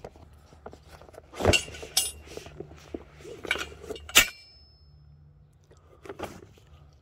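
A bundle of metal tent poles clanking as it is handled and laid down: several separate knocks and clinks, the loudest about four seconds in with a short metallic ring.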